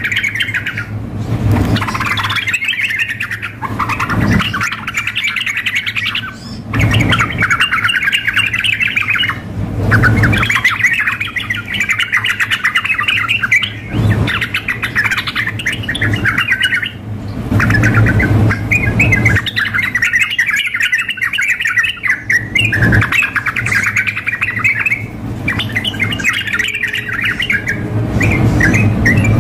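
Yellow-vented bulbuls (trucukan) calling and singing energetically: long runs of rapid, harsh chattering phrases, each a few seconds long with brief pauses between, over a low steady hum.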